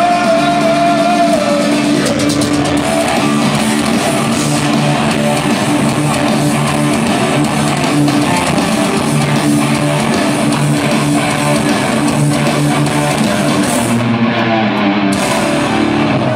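Live metal band playing loudly through a PA, distorted electric guitars and bass holding long chords that change every second or two.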